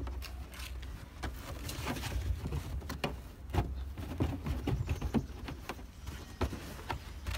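Rustling and scattered light taps and clicks as mesh window sunshades are handled on carpet, over a steady low rumble.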